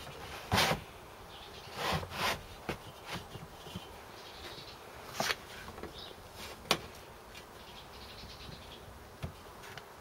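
Scattered short knocks, clicks and scuffs, several in the first seven seconds, over a faint steady hiss.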